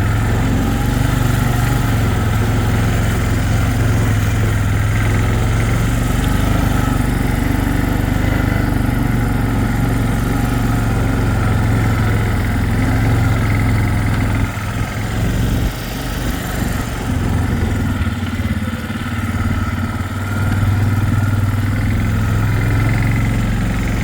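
Four-wheeler (ATV) engine running steadily while it is ridden. About halfway through the engine note drops off and then wavers unevenly.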